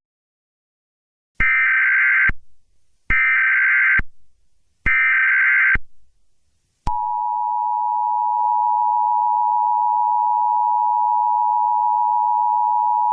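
Emergency Alert System tones: three one-second bursts of screechy data tones (the SAME header), about a second apart, then from about seven seconds in the steady two-note EAS attention signal, held unbroken.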